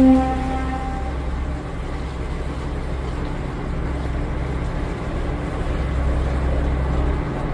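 Cruise boat's engine running with a steady low drone, and the tail end of a blast on the boat's horn cutting off in the first second.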